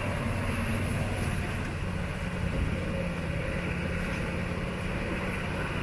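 Magirus 6x6 truck's diesel engine running steadily as the truck drives through mud and standing water.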